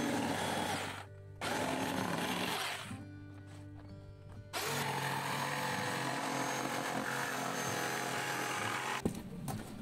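A power tool running in three stretches, the longest about four seconds, each a coarse steady hiss, over background music.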